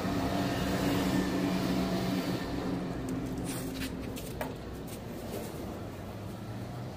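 A motor or engine running steadily with a low hum, a little quieter after about four seconds, and a few light clicks and knocks.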